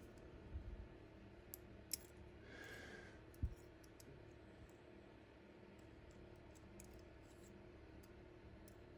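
Faint small clicks and taps of pistol parts being handled on a bench, with one dull knock about three and a half seconds in.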